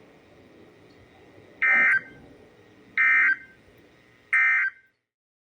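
Three short bursts of digital data tones from a NOAA Weather Radio broadcast, about 1.3 seconds apart: the Emergency Alert System (SAME) end-of-message code that marks the close of the alert.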